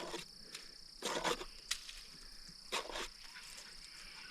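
Steady high-pitched insect drone in the background, with two short scraping noises about one second and three seconds in.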